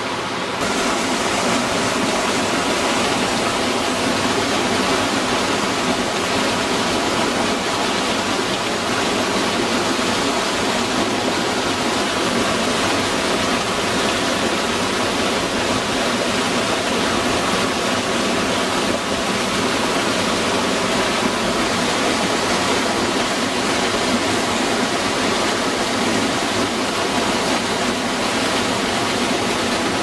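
A mountain waterfall pouring down a rock face: a steady, unbroken rush of falling water, a little louder from about half a second in.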